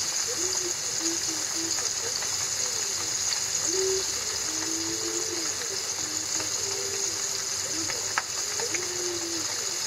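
Flour-coated horse mackerel fillets deep-frying in oil in a frying pan: a steady, high-pitched sizzle with bubbling. Short low tones come and go, and there is a single tick near the end.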